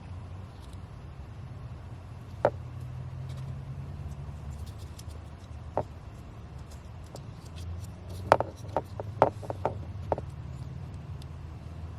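Scattered sharp clicks and knocks of hands and a tool working a car's plastic heater-hose pipe connection and clamp, with a quick cluster of louder clicks about eight to ten seconds in, over a low steady hum.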